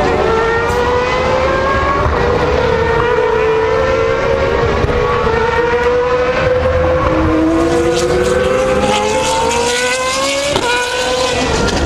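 GP2 race cars' 4-litre V8 engines at high revs as several cars pass, their engine notes overlapping and climbing as they accelerate. One engine's pitch drops sharply about ten and a half seconds in, like an upshift.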